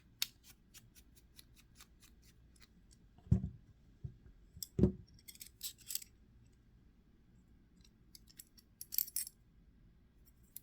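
Small metal knife parts and screws clicking and ticking as a folding knife is taken apart by hand, with two heavier knocks a second and a half apart about three seconds in, as parts are set down.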